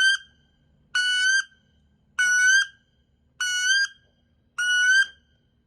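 Duck Commander Woody wood duck call blown in a string of short, high whistled notes, evenly spaced about one every 1.2 seconds. It imitates the wood duck's flying call, which the caller says won't bring flying ducks in to land.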